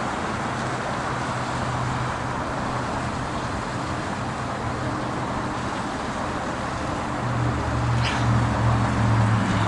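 Steady roar of road traffic, with a vehicle's engine hum growing louder near the end as it comes closer.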